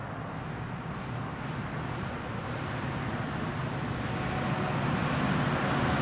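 Three diesel freight locomotives approaching along the track, their engines' low drone growing steadily louder.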